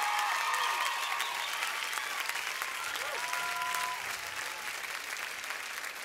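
Concert audience applauding, with scattered cheers over the clapping, slowly dying down.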